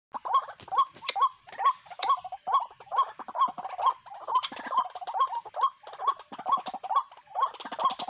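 White-breasted waterhens calling: a steady, rapid series of short rising "wak" notes, about two a second, with clicky edges.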